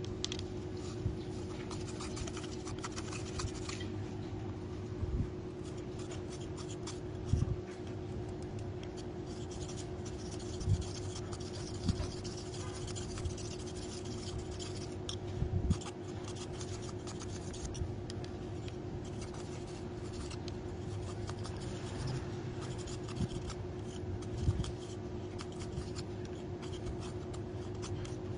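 Kitchen knife scraping a thin bamboo strip, shaving it down into a rod tip in a long run of short scraping strokes. There are a few brief low knocks now and then, over a steady hum.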